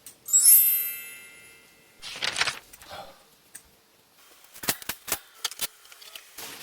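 A bright metallic ding rings out and dies away over about a second, followed by a short rustle and then several sharp clicks close together.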